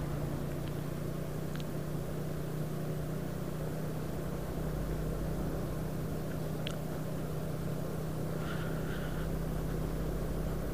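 Steady drone of the engine of the vehicle carrying the camera, cruising at an even speed, with constant road and wind noise.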